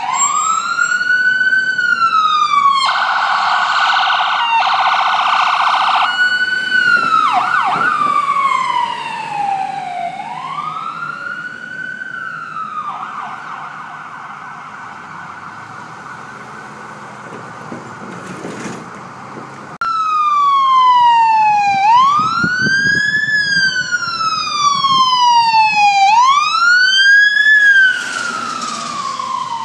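Emergency vehicle sirens passing: an electronic wail sweeping slowly up and down every few seconds, broken by spells of a rapid warbling tone, then a faster wail with sharp turns in the last third.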